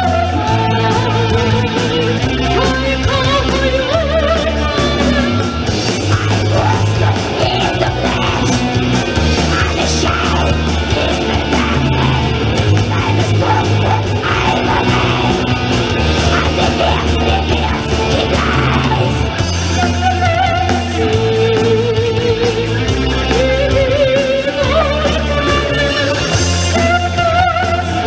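Black metal band playing live, with electric guitars and a heavy low end under a woman's sung and yelled vocals.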